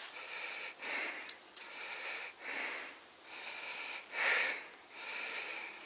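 A man breathing heavily through his nose, a breath every second and a half or so, with a nasal whistle between breaths. A few light metal clicks come about a second in, from the steel springs and catches of a cocked body-grip beaver trap in his hands.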